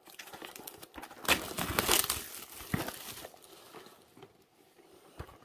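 Plastic wrapping being cut with a knife and pulled off a cardboard box, crinkling and tearing. It is loudest from about a second in to past the middle, then dies down to a few faint rustles.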